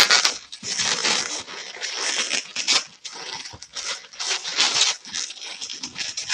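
Latex 260 modelling balloons rubbing against each other and against the hands as they are twisted and wound together, in irregular rustling bursts.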